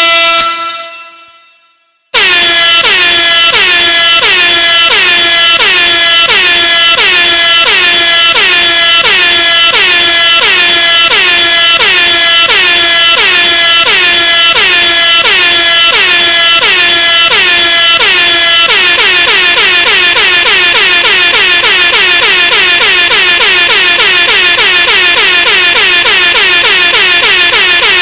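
Air horn, loud and heavily boosted. A held blast fades away at the start. About two seconds in, rapid repeated horn pulses begin, about two a second, each with a quick bend in pitch as it starts. A little past the halfway point the pulses speed up to about three a second.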